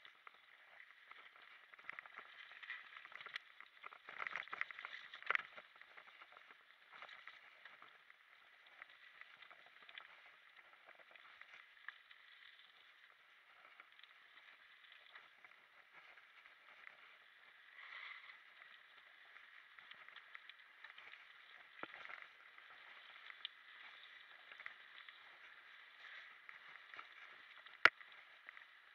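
Mountain bike rolling down a forest singletrack, picked up on a handlebar-mounted camera: a thin, muffled rattle and rush of tyres and frame over the trail, with knocks from bumps and one sharp click near the end.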